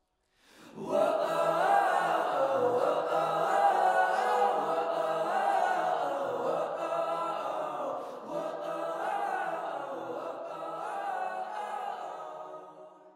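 Vocal music, voices singing together like a choir, coming in sharply about a second in and fading out at the end.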